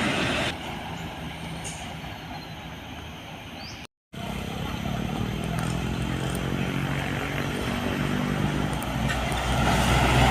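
A truck's diesel engine running in road traffic, growing louder near the end as it approaches. The sound drops out briefly about four seconds in.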